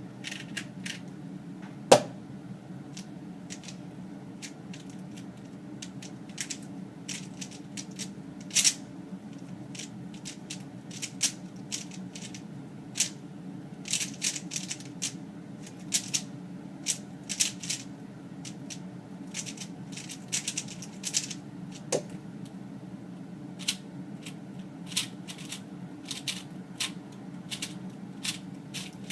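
Plastic speedcubes being turned quickly by hand: irregular bursts of clicking and clacking as the layers snap round, with a louder knock about two seconds in. A steady low hum runs underneath.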